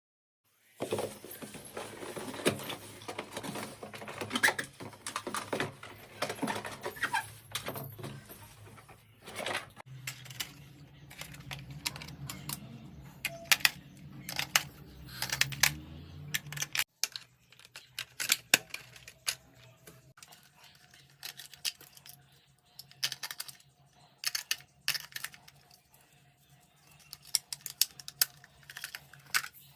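Small clicks, taps and rattles of a toy car being handled, many in a row, with a low hum beneath them for several seconds in the middle.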